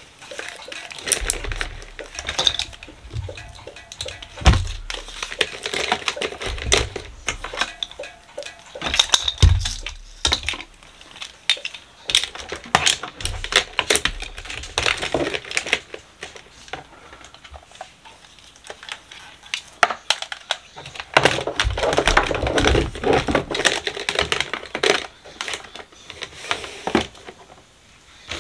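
Hair tools (curling irons, straighteners and their cords) clattering and scraping as they are packed by hand into a plastic drawer: irregular clicks and knocks, with two heavier thumps, one about four seconds in and another near ten seconds.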